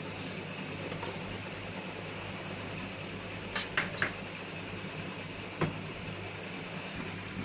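Mustard seeds sizzling in hot oil in a kadhai, with a few sharp pops as the seeds splutter: three in quick succession about halfway through and one more a second and a half later.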